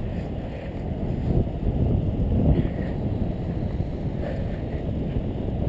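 Wind rushing over the microphone of a GoPro HD Hero2 mounted on a moving bicycle: a steady low rumble.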